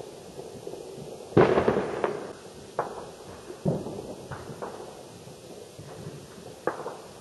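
Distant fireworks and gunshots. A loud firework boom comes about a second and a half in and rolls on for most of a second, followed by about five sharper single bangs spread over the next five seconds.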